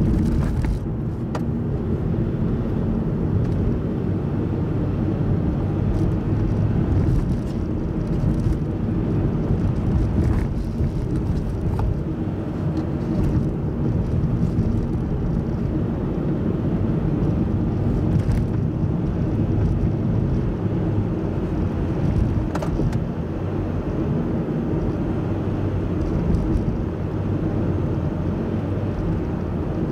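Steady engine and tyre rumble of a car driving along at speed, heard from inside the cabin, with an occasional faint tick.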